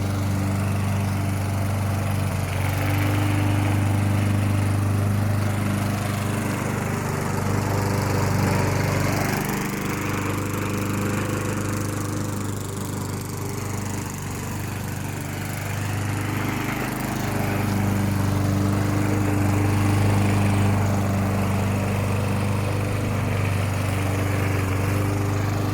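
Briggs & Stratton 4 horsepower Quattro single-cylinder four-stroke engine on an MTD Yard Machines push mower, running steadily while cutting grass. Its drone eases slightly and picks up again as the load on the blade changes.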